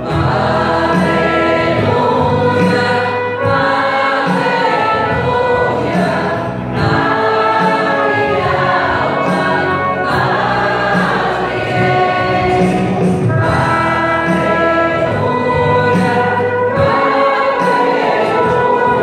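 A hymn sung by several voices, accompanied by keyboard and trumpet.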